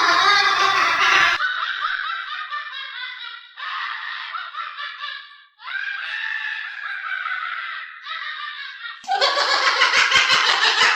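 A parrot mimicking laughter: several bouts of high-pitched, chopped, laugh-like cackling. About nine seconds in it turns louder and faster-pulsed.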